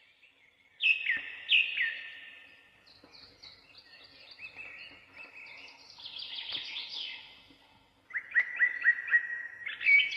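Red-vented bulbul calling: two loud notes sliding down in pitch about a second in, then softer chattering, and a quick run of repeated notes from about eight seconds in.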